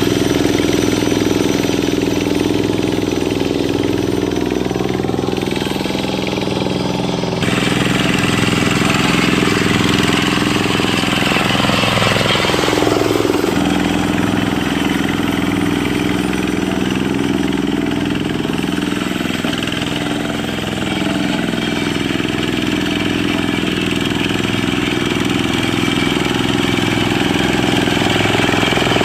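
Single-cylinder Dongfeng diesel engine of a Quick Impala hand tractor running steadily. Its pitch sags and recovers about twelve seconds in.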